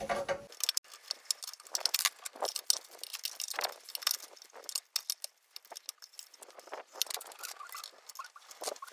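Small metal engine parts clicking, tapping and rattling as they are handled and fitted, in quick irregular runs, during the reassembly of a motorcycle engine's rocker assembly.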